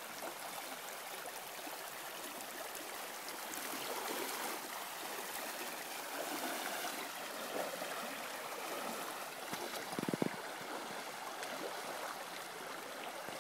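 A shallow river running steadily over rocks and small rapids. There is a short low thump about ten seconds in.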